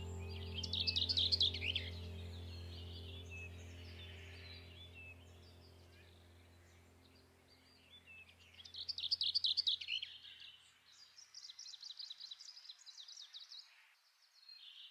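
Birds chirping in quick runs of rapid notes, about a second in and again through the second half, over a low held music note that fades away in the first seven or eight seconds.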